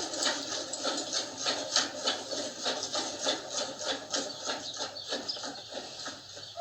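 Hand-milking a water buffalo: jets of milk squirting into a pail in a steady rhythm of about three strokes a second.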